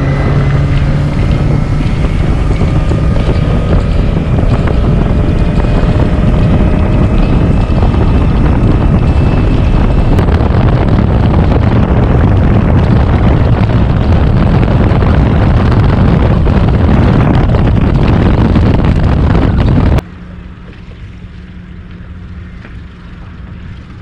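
Suzuki outboard motor, already warmed up, accelerating hard with its pitch rising over the first several seconds, then running flat out under heavy wind and water noise on the microphone. About 20 seconds in the sound cuts off suddenly to a much quieter, steady low hum.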